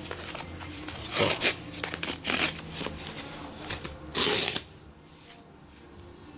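Hands handling a brown cardboard phone box: a series of short scraping, rustling strokes of skin and cardboard, the loudest about four seconds in, then quieter rubbing as the box's string tie is unwound.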